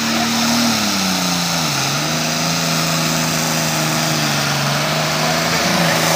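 Diesel engine of a 9300 Super Farm pulling tractor running hard. Its pitch drops between about one and two seconds in, then holds steady.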